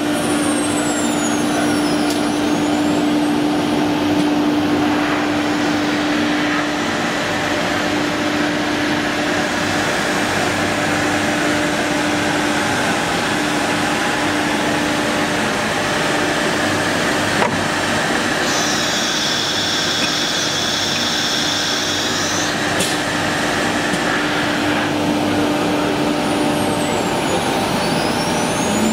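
CNC wood router running: the spindle holds a steady hum over a continuous rushing noise, with a higher whine joining for a few seconds past the middle. Near the start and again near the end, sweeping pitches mark the spindle changing speed.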